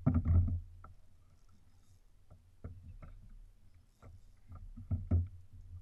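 Irregular knocks and thumps on a plastic fishing kayak and its gear while an angler fights a fish on a bent rod, loudest in a cluster of thumps at the start and again near the end.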